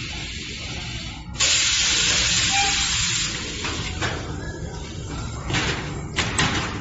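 Naigu NG 15RS mattress roll-packing machine running as it rolls a mattress up in plastic film: a steady low hum under a loud hiss. The hiss grows suddenly louder about a second and a half in and stays up for about two seconds. Several short bursts of hiss follow near the end.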